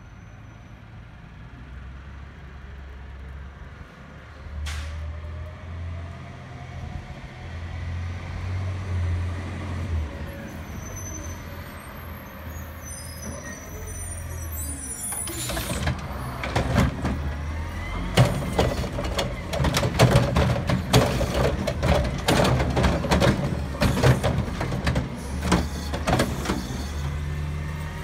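Front-loader garbage truck with a Curotto-Can automated arm approaching, its diesel engine running and growing louder. A sharp air-brake hiss comes a little past halfway, then a long run of loud clanks and rattles from the truck's arm and can as it pulls up to the cart.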